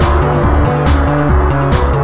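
Electronic dance music: a deep synth bass line stepping between notes, with a bright noisy hit a little under once a second.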